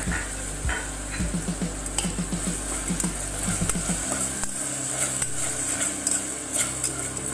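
Onion-tomato masala with ginger-garlic paste frying in oil in a metal pot, sizzling steadily, while a spoon stirs and scrapes against the pan with small repeated strokes.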